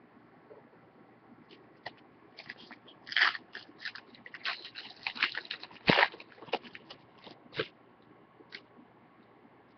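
Crinkling and crackling of a trading-card pack's foil wrapper being torn open and handled, in a busy run of sharp crackles about two seconds in that dies out near the end, loudest around the middle.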